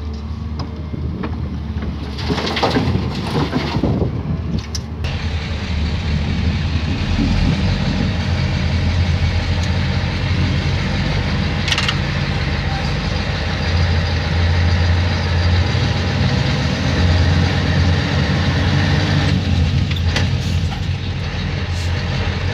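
Mercedes-Benz 3544 tipper truck's heavy diesel engine running steadily. A few seconds in, a rush of soil and rock pours from an excavator bucket into the steel tipper body; after that the engine runs a little louder.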